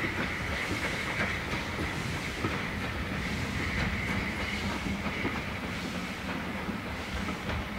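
Steam locomotive working away from the station: wheel and rail noise with a steady steam hiss, slowly fading as it draws off.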